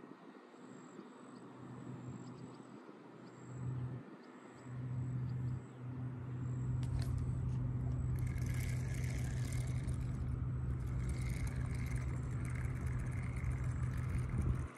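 A motor hum at one steady low pitch, cutting in briefly twice and then running on from about five seconds in, with a hiss joining after about eight seconds.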